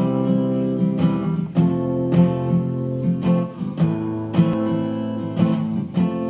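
Background music of acoustic guitar strumming chords, with a stroke every half second to a second.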